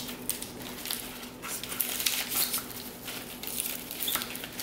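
A plastic orchid pot being squeezed, crinkling, and old bark potting mix rustling as the root ball is worked loose and pulled out, giving irregular crackling and rustling.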